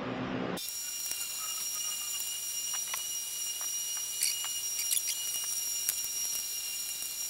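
A steady high-pitched whine made of several held tones, with light clicks and taps scattered through it from hand work with a screwdriver on the motorcycle's panels. The whine sets in suddenly about half a second in.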